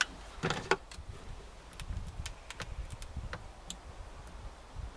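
Light, irregular clicks and handling noises from a cable connector being worked by hand, with a short louder noise just under a second in.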